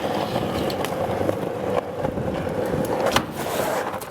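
BMX bike rolling over pavement: a steady tyre rumble with scattered clicks and knocks, stopping at the end.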